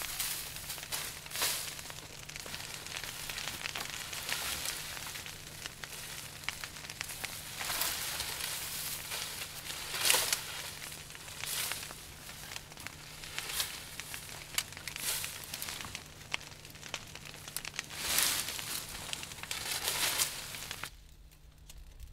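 Cut leafy branches and dry brush rustling and crackling as they are dragged and handled, in repeated bursts a second or two apart.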